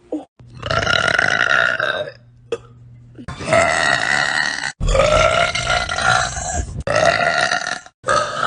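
A woman burping: long, loud, drawn-out belches, one after another, about four full ones and a fifth starting near the end, each lasting one to two seconds and stopping abruptly.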